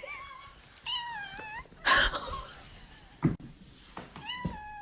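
Domestic cat meowing three times: a short call, then a wavering call, then a long drawn-out meow near the end. A short noisy burst comes about two seconds in.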